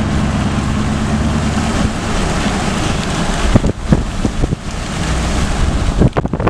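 Vehicle driving on a wet road: steady rush of tyre and wind noise. From about three and a half seconds in, irregular gusts of wind buffet the microphone.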